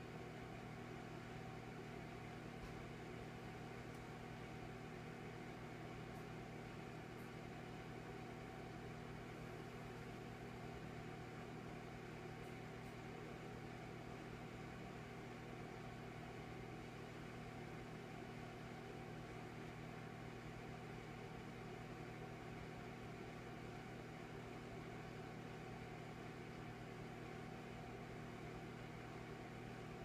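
Electric fireplace running: a steady, faint motor-and-fan hum over an even hiss, with no crackle of burning wood.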